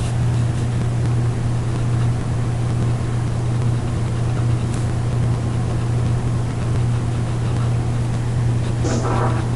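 Steady low hum with a constant hiss of background noise, and a brief louder sound about nine seconds in.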